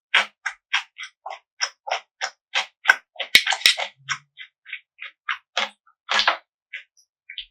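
A person chewing food in an even rhythm of about three chews a second. A couple of sharp clicks come a little past the middle, and the chews then slow and thin out.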